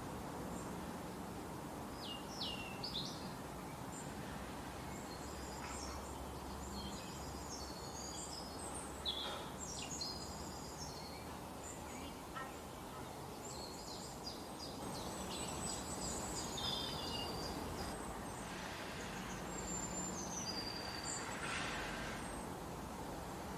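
Forest songbirds chirping and whistling in short high phrases, in several bursts, over a steady background hiss.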